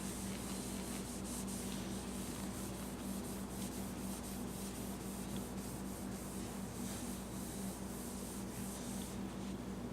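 Hand polishing of a plastic headlight lens with a cloth and clarifying compound: quick back-and-forth rubbing strokes, about two or three a second, that stop about nine seconds in. A steady low hum runs underneath.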